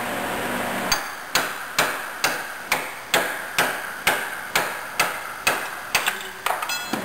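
Brass-headed hammer striking a punch down through an OMC Cobra bearing carrier held in a vise: a steady series of sharp metallic blows, about two a second, starting about a second in. The blows drive the seal and the bearing out of the carrier together.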